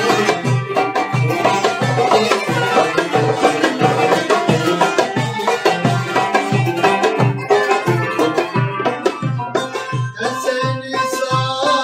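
Instrumental Turkish folk music: a steady low drum beat under a melodic instrument line.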